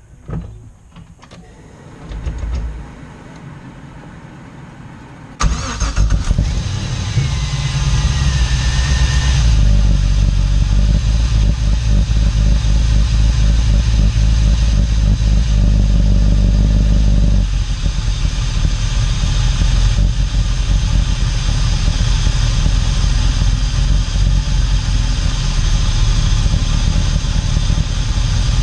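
LS V8 engine fitted with a new 85 mm throttle body starting up about five seconds in and running at a fast idle. About twelve seconds later the idle drops lower and settles as the engine computer relearns where idle is.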